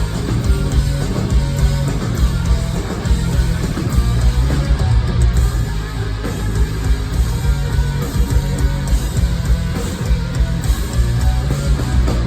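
A hard rock band playing live: distorted electric guitars over bass and drums, loud and continuous.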